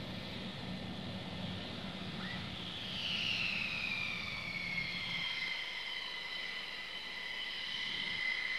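F-15E Strike Eagle taxiing, its twin jet engines giving a high whine of several tones. The whine swells and falls in pitch about three seconds in, then holds steady.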